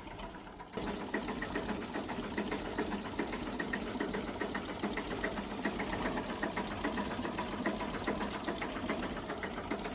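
A fast, steady mechanical clatter, like a small machine or engine running, starting about a second in.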